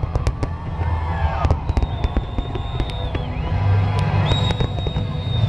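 Fireworks display: a rapid run of sharp crackles and bangs over a deep rumble, with a high steady whistle held for over a second about two seconds in and again near the end.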